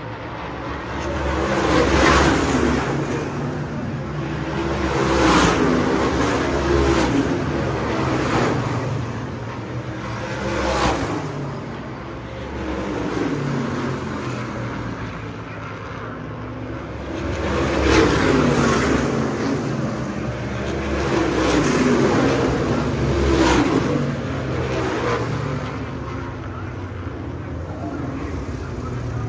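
Supermodified race cars with V8 engines passing the grandstand one after another, each engine note swelling and dropping in pitch as it goes by. The loudest passes come about two, five, eleven, eighteen and twenty-three seconds in.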